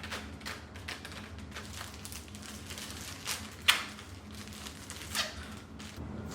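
Scattered light taps and clicks of objects being handled, with one sharper click about halfway through.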